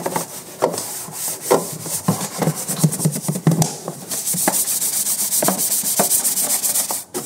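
Bristle wheel-cleaning brush scrubbing wet plastic engine-bay trim lathered with all-purpose cleaner. Separate rasping strokes come about once a second, then from about halfway a faster, steadier scrubbing runs until just before the end.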